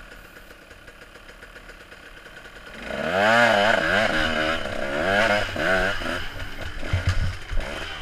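Off-road motorcycle engine running low and quiet at first, then opened up about three seconds in: the revs rise and fall again and again as the bike accelerates and the rider works the throttle.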